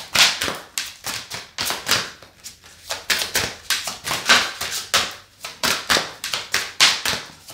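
Tarot cards being shuffled by hand: a quick, irregular run of soft card slaps and clicks.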